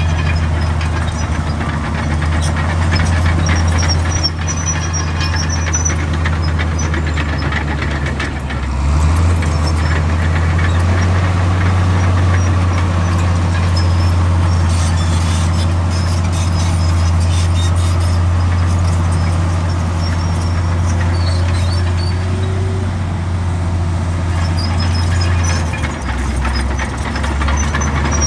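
Komatsu D65 bulldozer's diesel engine running steadily under work, rising in pitch about nine seconds in and dropping back near the end, with faint high squeaks.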